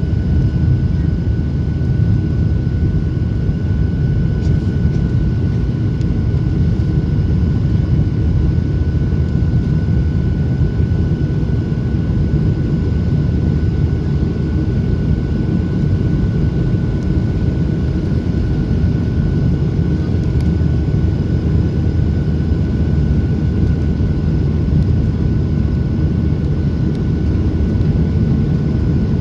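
Steady cabin noise of a Boeing 737-800 in flight: a deep, even rumble of airflow and its CFM56 turbofan engines, with a thin steady whine above it.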